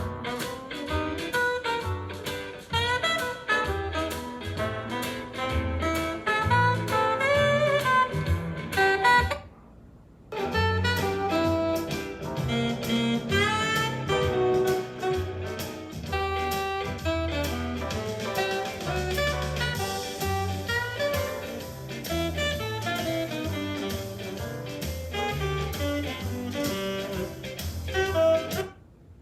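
Instrumental music with a strong bass line, played through a portable Bluetooth speaker for a sound test. It cuts out for about a second, roughly nine seconds in, then resumes, and breaks off again near the end.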